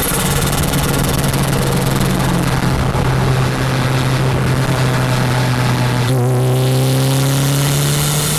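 Toyota MR2 Turbo's 3S-GTE four-cylinder turbo engine with a CX Racing T3/T4 turbocharger, running at a steady engine speed under a strong hiss. About six seconds in, its pitch starts to climb slowly.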